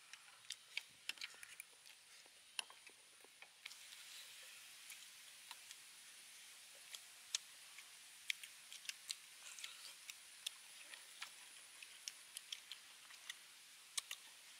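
Faint close-up eating sounds of beef ribs being chewed and picked at by hand: scattered short wet clicks and smacks of chewing, over a steady high hiss.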